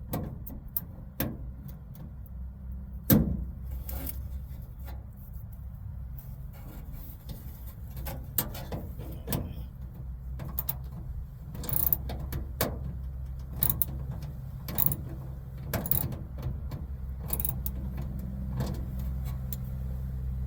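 Scattered clicks and knocks of hand work on a 1985 Buick Regal's door while fitting the interior door handle and lock hardware, over a steady low hum; the sharpest knock comes about three seconds in.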